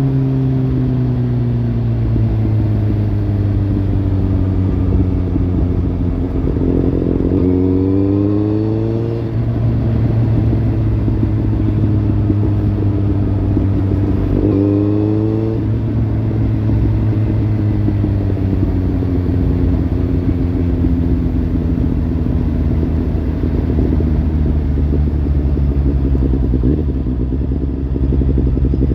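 Kawasaki Z800 inline-four running through a Lextek slip-on exhaust, a steady low engine note with two short climbs in pitch as the throttle is opened, about a quarter and half way through, then settling back down.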